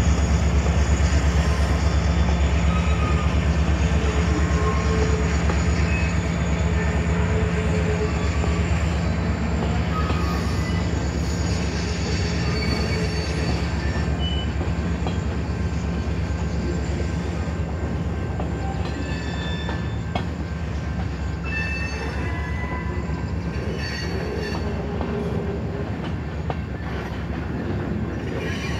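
Freight cars of an Escanaba & Lake Superior train (boxcars, centerbeam flatcars, gondolas) rolling steadily past a grade crossing: a continuous rumble of steel wheels on rail with short high wheel squeals now and then, slowly getting quieter.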